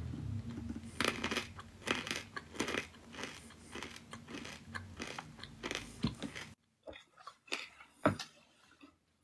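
Irregular crunching clicks close to the microphone, dense for the first six and a half seconds, then dropping away suddenly to a few scattered clicks, with one sharp click about eight seconds in.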